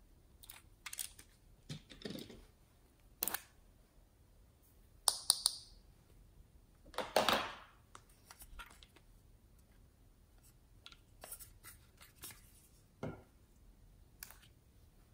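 Light clicks, taps and rustles of small plastic toys being handled, with a short hissy rustle about five seconds in and a longer rustle a couple of seconds later.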